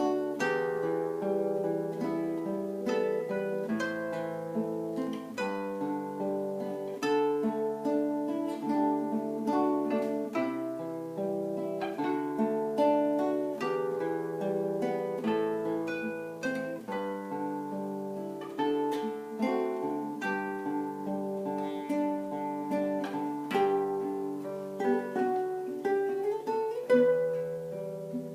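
Acoustic guitar playing an instrumental piece, plucked notes and chords following one another steadily without a break.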